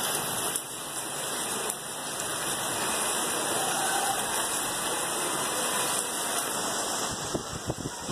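Heavy rain falling steadily, an even hiss of downpour.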